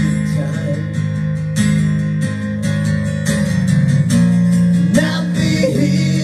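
Recorded pop-rock song playing: strummed acoustic guitar with bass and held notes, without sung words.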